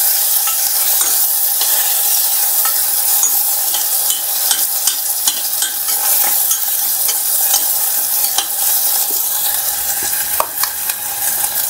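Onion, ginger-garlic paste and tomato frying in ghee in a stainless steel pressure cooker pan, sizzling steadily, while a spoon stirs them with many small clicks and scrapes against the steel.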